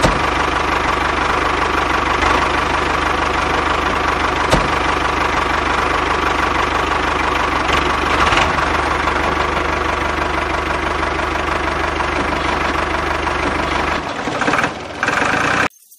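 Tractor engine running steadily with a fast, even low beat; it changes near the end and then cuts off suddenly.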